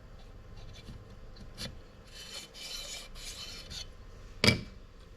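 Metal scraping as a piston ring is pushed down the engine's cylinder bore to square it for an end-gap check: three short rasping scrapes, then one sharp metal clink about four and a half seconds in.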